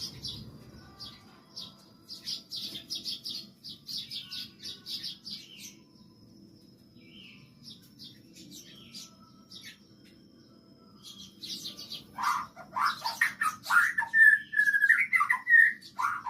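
A flock of Eurasian tree sparrows chirping in quick, busy runs of high notes. About twelve seconds in, a white-rumped shama breaks in with a louder, lower, varied song of whistled phrases and glides, answering the sparrows.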